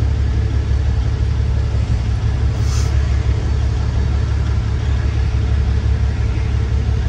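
Semi truck's diesel engine running, a steady low drone.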